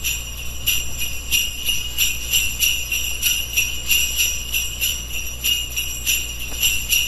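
Jingle bells shaken in a steady rhythm, about three shakes a second, over a low steady tone: a Christmas intro sound effect.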